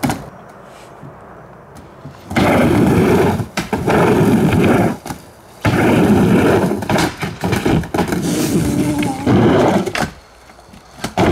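Skateboard wheels rolling across a wooden mini ramp: a loud rumble on each pass through the flat and up the walls, in three long stretches with short lulls at the turns. A single sharp knock comes right at the start.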